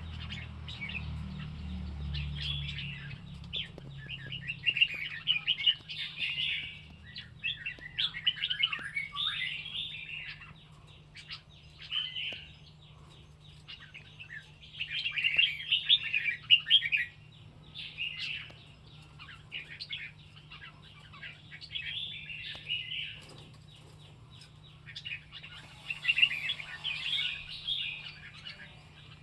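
White-rumped shama singing: quick, varied whistled and chirping phrases in bouts of one to three seconds, with short pauses between them, over a faint steady low hum.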